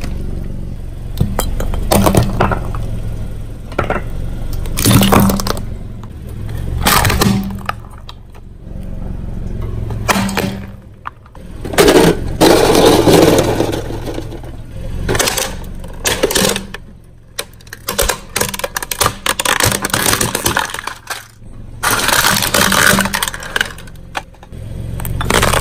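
A car tyre rolling over and crushing brittle objects: a string of sharp cracks and crunches, with a longer, denser crunch about halfway through, over the steady low hum of the car's engine.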